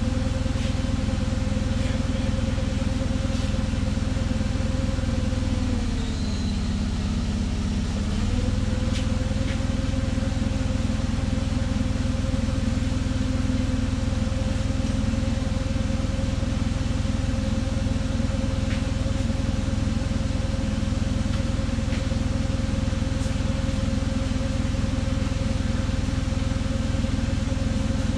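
Forklift engine idling steadily, its pitch sagging briefly about six seconds in and recovering about two seconds later.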